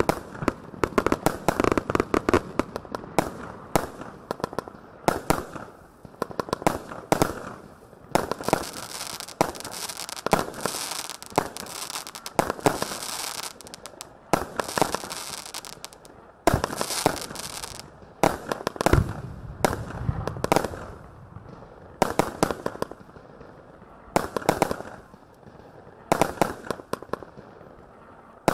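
Tai Pan Rampage 150-shot firework cake firing, its tubes going off in fast, uneven clusters of shots and bangs, with stretches of dense crackling and short lulls between volleys.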